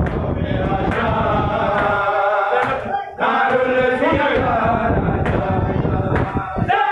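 Group of men chanting a noha in unison, with the sharp slaps of chest-beating (matam) under the voices. The chanting breaks off briefly about three seconds in.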